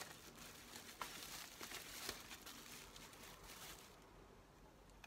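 Faint crinkling and rustling of plastic bubble wrap being pulled off an item by hand, with a couple of sharper clicks, dying away about four seconds in.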